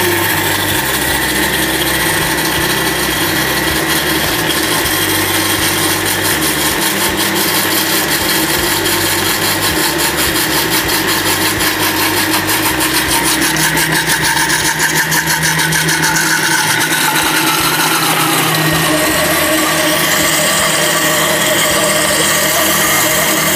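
Countertop blender motor running steadily while vegetable oil is drizzled in through the lid, emulsifying a mayonnaise. Its pitch drops a little about two-thirds through, and it cuts off at the very end.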